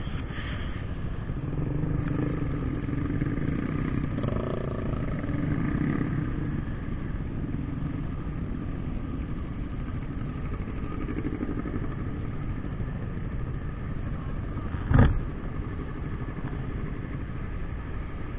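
Motorcycle engine running while riding, under a steady rush of road and wind noise; the engine note is a little louder between about two and six seconds in. A single short thump about fifteen seconds in.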